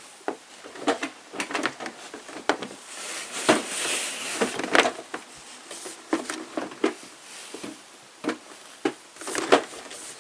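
Knocks, clicks and clatter from handling laminate desk pieces, with a longer scraping rustle about three to five seconds in.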